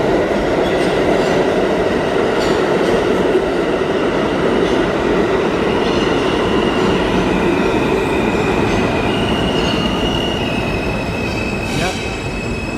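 R160 New York City subway train moving along the platform, its wheels clicking over the rail joints under a loud steady rumble. In the second half come high squealing tones that step in pitch.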